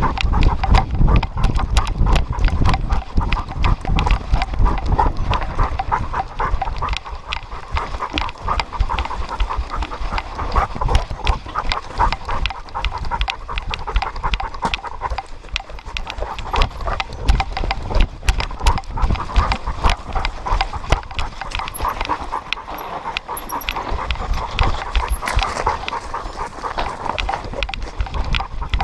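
A dog running hard on a dirt trail, panting rapidly, with a fast, continuous patter of its paws on the ground, heard close up from a camera strapped to the dog.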